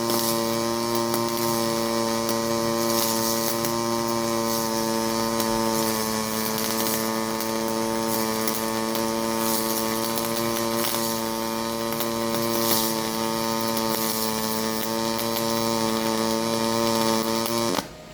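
Pulse MIG welding arc from an HTP Pro Pulse 220 running 0.030 wire on a 3/8 plate corner weld: a steady buzz held at one pitch, which cuts off sharply near the end as the arc is broken and the weld finished.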